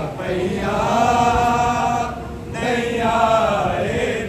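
Men's voices chanting a noha, a Muharram lament, in two long held phrases with a short break about two seconds in.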